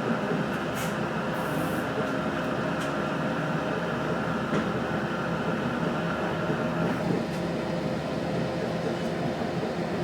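Cabin noise inside a 3100-series diesel railcar under way: a steady rumble of engine and wheels on the rails with several steady tones running through it, and a few faint clicks.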